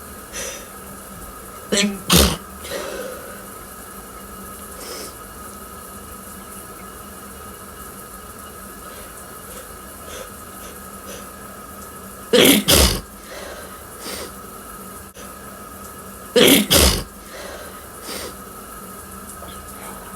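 A person sneezing loudly three times: once about two seconds in, and twice more near the middle and two-thirds of the way through. Each sneeze comes as a quick double burst, with small breaths or sniffs between them over a steady faint hum.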